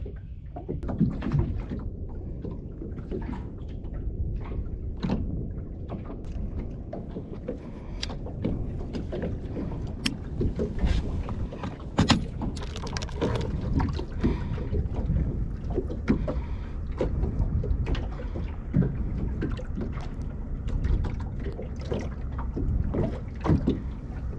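Steady low rumble of wind on the microphone aboard a small open boat, with scattered short knocks and clicks as a clamp-on rod holder and tackle are handled.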